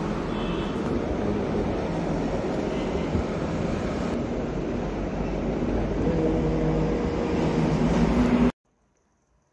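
Road traffic: the steady rumble of motorbikes, scooters and cars passing on a street, cutting off suddenly about eight and a half seconds in.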